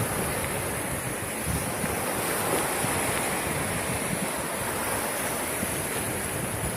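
Sea waves washing onto the shore: a steady wash of surf noise.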